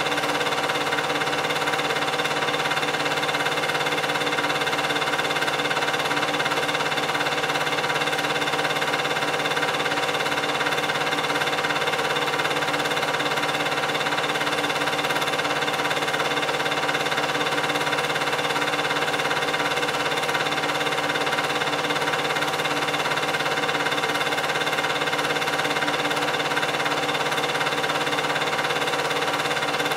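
8mm film projector running, its motor and film transport making a steady, unchanging mechanical hum with several held tones.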